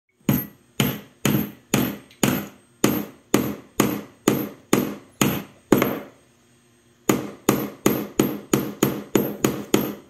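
Small hammer striking a nail into a thin wooden bird-feeder kit piece, each blow with a short ringing tail. About a dozen strikes come at roughly two a second, then after a pause about six seconds in, a quicker run of about nine.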